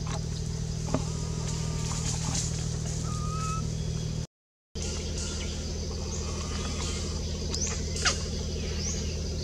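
A steady low mechanical hum with a few short, high bird-like chirps over it; the sound cuts out for a moment about halfway through.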